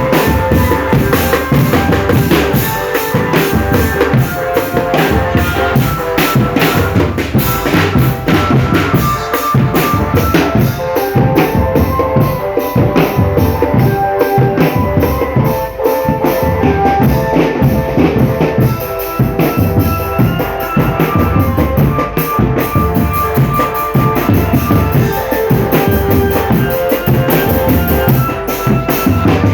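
Drumband playing: snare and bass drums beating a busy, steady rhythm, with a line of held melody notes over the drums.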